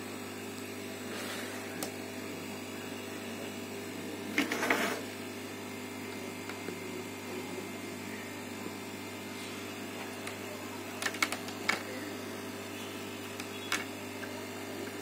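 Steady electrical hum from bench equipment. Over it come a short scraping rustle about four and a half seconds in and a few light clicks and taps near the end, as multimeter probe tips are handled and touched to a laptop motherboard.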